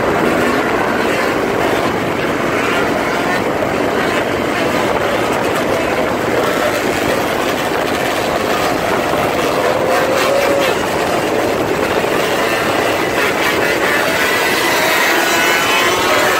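Dirt bike engines running at speed on a highway, under a steady rush of wind noise on the microphone. An engine's pitch climbs near the end.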